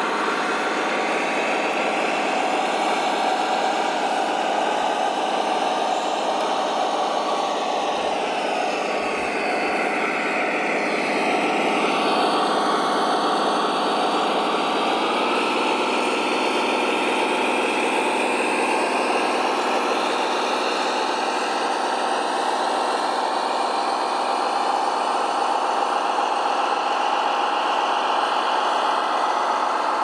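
Radio-controlled scale construction models running, a steady engine-like drone. A higher whine dips and rises in pitch about eight to fourteen seconds in, and the engine note shifts at about fifteen seconds.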